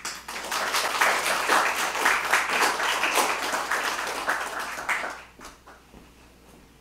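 Audience applauding, starting suddenly at the end of a poem and dying away after about five seconds into a few last claps.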